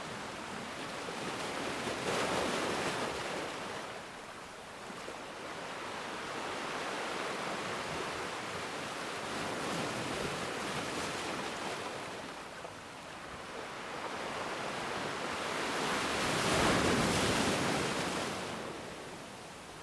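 Ocean waves washing onto the shore, a steady rush that swells and fades in slow surges about seven seconds apart, the loudest near the end.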